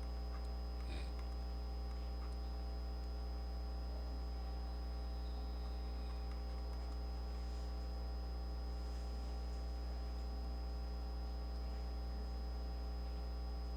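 Steady electrical mains hum with its evenly spaced overtones and a faint high whine above it, unchanging throughout.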